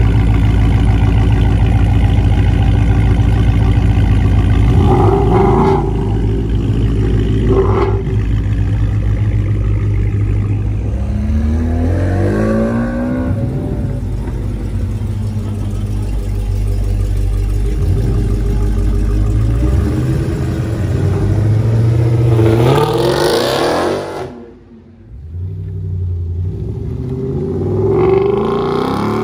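Dodge Charger V8 exhausts idling loudly with two short throttle blips, then a car pulling away with rising revs and a hard rev near the end of the run. After a sudden cut, another V8 car revs as it drives past.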